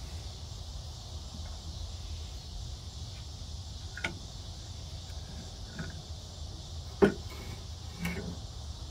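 Wooden arms of a Strong Arm pottery tool being handled and fitted onto the metal post and bracket of a pottery wheel: a few light knocks, and one sharper knock about seven seconds in. Crickets make a steady hiss behind.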